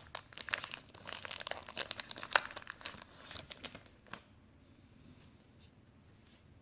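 Foil wrapper of a Pokémon booster pack being torn open and crinkled: a dense run of sharp crackles for about four seconds, then only faint rustling.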